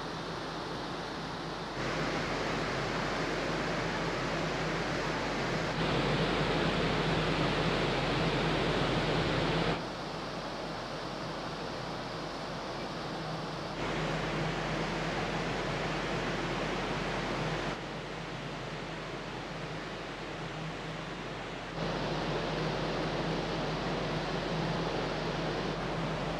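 Steady rushing noise of wind and churning water on a ferry's open deck as it comes alongside the quay, over a steady low hum from the ship. The level steps up or down abruptly about every four seconds.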